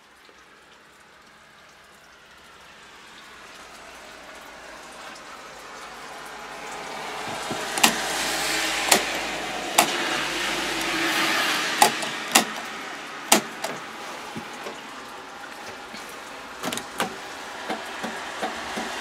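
A steady rushing hiss that grows louder over the first several seconds. Over it come sharp clicks, about six in the middle and a few lighter ones near the end, from the bus dashboard's push-buttons and switches being pressed.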